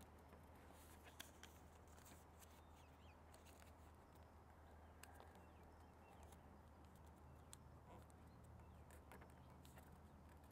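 Near silence: faint, scattered soft ticks and rustles of origami paper being folded and creased by hand, over a low steady hum.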